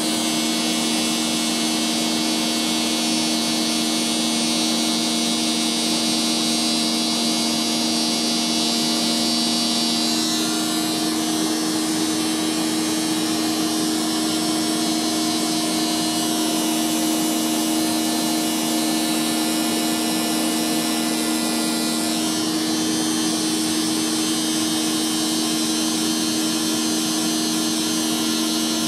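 Vacuum cleaner running steadily to power a Flowbee haircutting attachment: a constant motor hum under the hiss of rushing air. The airy hiss shifts slightly about ten seconds in.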